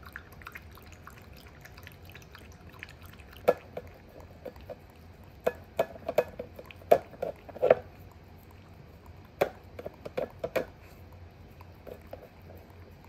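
Toy poodle lapping water from a stainless steel bowl: irregular wet laps and licks in clusters with short pauses, ending with the dog licking the bowl clean.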